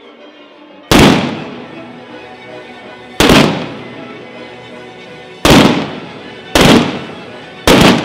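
Five loud firework bombs fired at ground level in a 'batteria alla bolognese' display, each bang dying away over about a second. The first comes about a second in, and the gaps shorten from about two seconds to about one.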